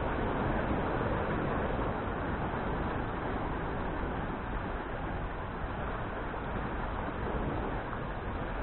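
Steady wash of small sea waves breaking on shoreline rocks, mixed with wind noise.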